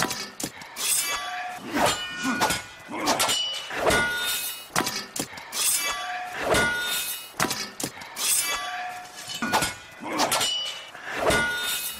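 Metal striking metal in repeated sharp clangs, roughly one a second and unevenly spaced, several of them leaving a brief ringing tone.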